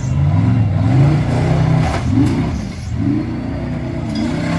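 Off-road hill-climb buggy's engine revving hard as it climbs a steep sand hill, its pitch rising and falling again and again.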